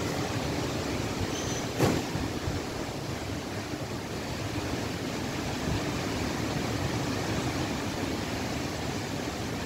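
Strong dust-storm wind blowing steadily across the microphone in a low, rushing rumble, with one short thump about two seconds in.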